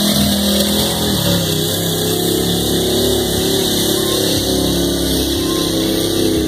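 Mud-racing pickup truck's small-block 350 V8 running hard at full throttle through the mud pit. It holds high revs, with the pitch dipping and wavering as the truck pulls through the mud.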